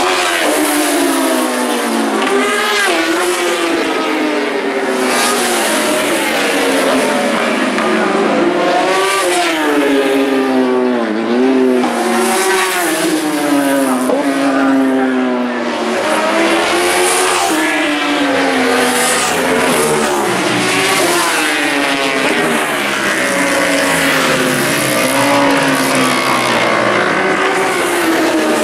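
1000cc four-stroke superbike racing motorcycles passing one after another at racing speed. Their engines rev up and drop away over and over, the pitch rising and falling as bikes come and go, several at once at times.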